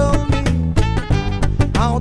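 Background music with a steady beat: drums, bass and a gliding melody line.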